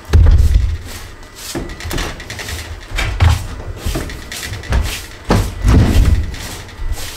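Irregular heavy wooden thumps and knocks, about six of them, the loudest right at the start, as a new floor joist is worked into place.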